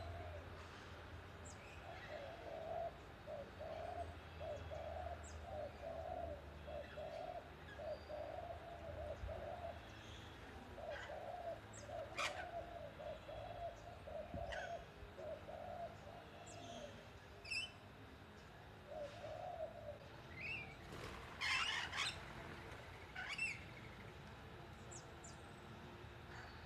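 Birds calling: a long run of low, pulsing calls through the first two-thirds, and short sharp screeches from rainbow lorikeets, loudest in a cluster about three-quarters through.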